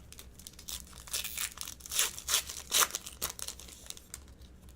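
Trading card pack wrapper being torn open and crinkled by hand, in a series of irregular rustling tears and crackles that are loudest in the middle and die away near the end.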